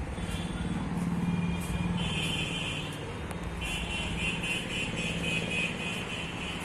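Steady low mechanical hum of a running engine, with a fainter high whine that starts about two seconds in, breaks off briefly and comes back.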